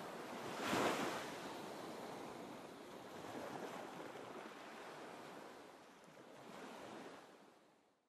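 Ocean surf: waves washing in and out, with a louder surge about a second in and a smaller one near the end, then fading out.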